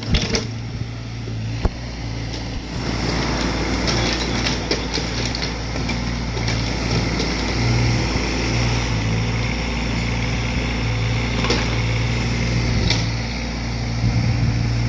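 Diesel engine of Caterpillar heavy equipment running steadily under work, with a few sharp knocks and a thin high whine that comes and goes.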